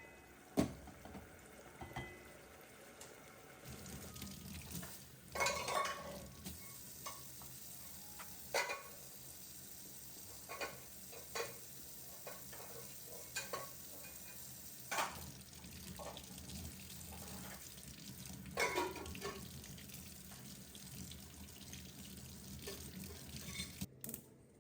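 Kitchen work: scattered clinks and knocks of dishes and utensils over a steady background noise that starts about four seconds in.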